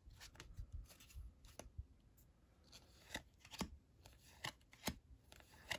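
Topps 2021 Series 1 baseball cards being flipped through one at a time in the hands, each card slid off the stack with a faint, irregular flick and rustle of card stock.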